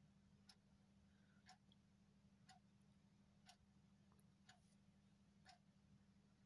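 Faint clock ticking steadily, one tick a second, over a low steady hum.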